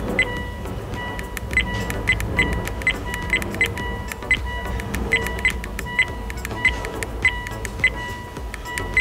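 Short electronic beeps at one pitch, roughly two a second at uneven spacing, from a dashcam's buttons being pressed while it is being set up. A steady faint high tone and low background sound run underneath.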